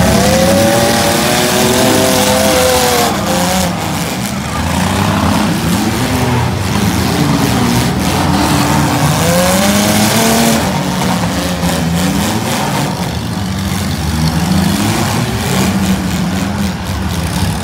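Six-cylinder demolition derby cars revving hard, their engine pitch rising and falling again and again as they ram each other, with the knocks and crunches of collisions among the engine noise.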